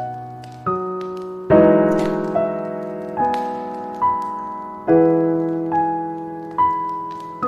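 Slow, gentle solo piano music: single notes and soft chords struck about once a second, each left to ring and fade before the next.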